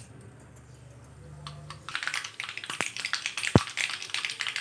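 Mustard seeds crackling and popping as they splutter in hot oil in an aluminium kadhai. The crackling starts about halfway through and quickly turns into a busy patter of pops, with one louder thump near the end.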